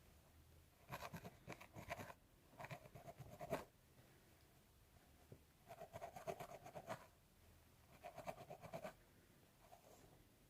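Scalp being scratched through the hair, in four bursts of quick scratching strokes, each about a second long, with short pauses between.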